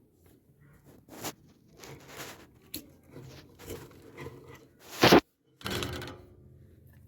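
Irregular handling knocks and rustles, with one loud knock about five seconds in.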